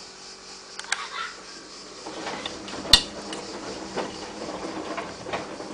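Hotpoint-Ariston AVXXF137 washing machine running: a few clicks, the sharpest about three seconds in, and from about two seconds in a steady low hum under a rustling noise with scattered ticks.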